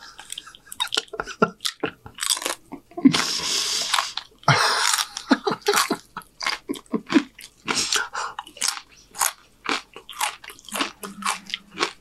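Close-up crunching and chewing of crisp fried corn tortilla chips: many sharp, irregular crunches as the chips are bitten and chewed.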